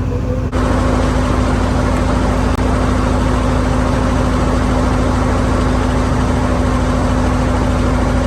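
An engine running steadily at idle: a loud, even drone with a constant hum and a rapid low throb. It starts abruptly about half a second in.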